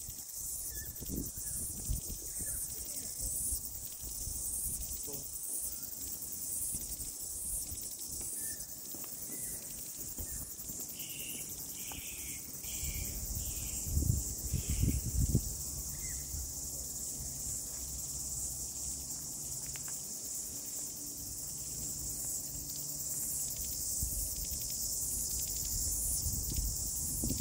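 A steady, high-pitched chorus of insects shrilling in the grass. A brief run of four chirps comes about eleven seconds in, and a low rumble of wind swells around the middle.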